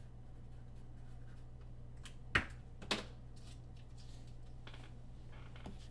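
Two sharp clicks about half a second apart, with a few fainter ticks, over a steady low electrical hum.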